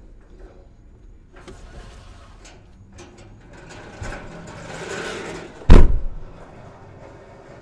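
Heavy pressure-treated wooden posts scraping and knocking as they are shoved into an SUV's cargo area, heard from inside the cabin. About two-thirds in, the rear liftgate slams shut with one loud bang, the loudest sound.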